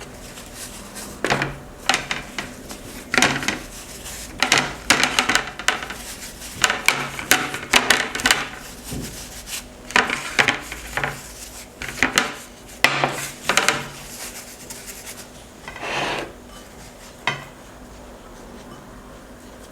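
Irregular scraping and rubbing against a dish as breaded mutton rolls are coated by hand in flour, beaten egg and rusk crumbs. The strokes come in quick uneven bursts and die away about seventeen seconds in.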